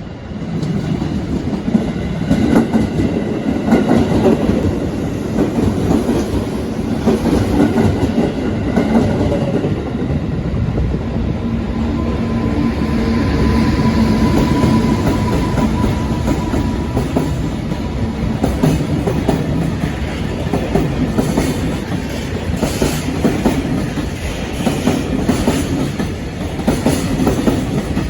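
Freight train rolling past at close range, its wagons' wheels clattering over the rail joints in a long, steady run of clicks and rumble.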